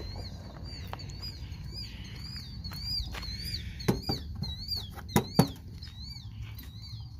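A bird chirping over and over, about two short high chirps a second, each rising then falling. A few sharp knocks come about four and five seconds in, as a hand handles the mower's rubber fender flap.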